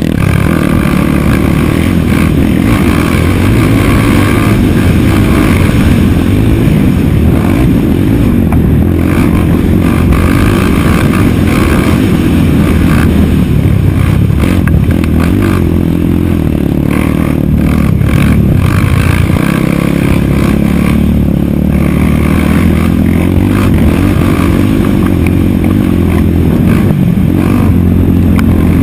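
Race quad (ATV) engine at racing speed, heard on board, its revs rising and falling as it is ridden hard along a dirt motocross track.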